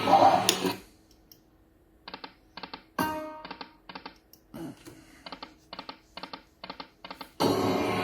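Dragon's Riches Lightning Cash slot game sounds: a reel-spin sound ends just under a second in, then a string of short reel-stop clicks, with a chime about three seconds in. A new spin sound starts near the end.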